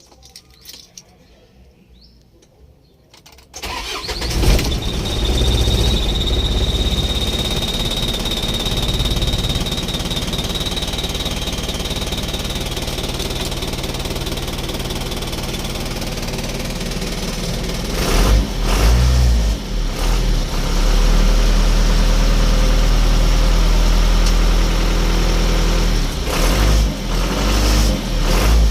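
Isuzu ELF truck's diesel engine starting about three and a half seconds in, on a test start for a hard-starting complaint, then running with a thin high whine for several seconds. It is revved briefly twice later on.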